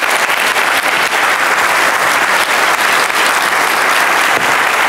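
A large audience applauding, loud and steady.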